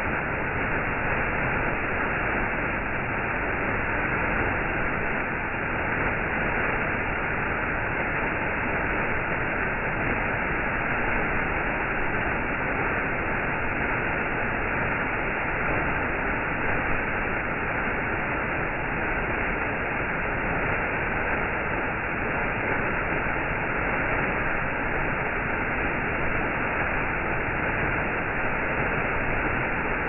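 Waterfall rushing steadily as its water falls down a narrow rock cleft.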